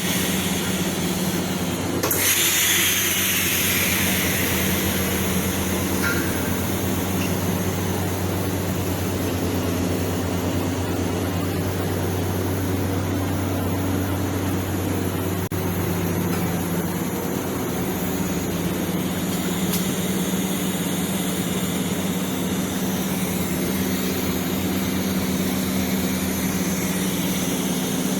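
TIG welding a 4-inch schedule 40 practice pipe: the arc and welding machine give a steady buzzing hum over a constant hiss. A brighter hiss comes in about two seconds in and fades over the next second.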